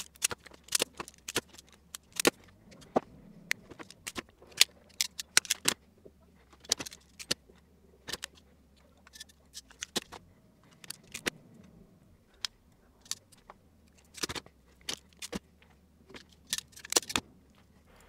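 Automatic wire stripper and ratcheting crimp tool at work, stripping wire ends and crimping insulated spade terminals onto them: a run of sharp, irregular clicks and snaps.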